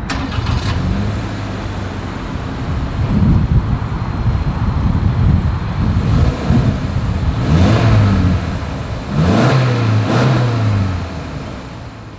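Exhaust of a 2024 Subaru Crosstrek Wilderness's 2.5-litre flat-four engine, revved repeatedly while the car stands still, the pitch rising and falling with each blip. It settles back toward idle near the end.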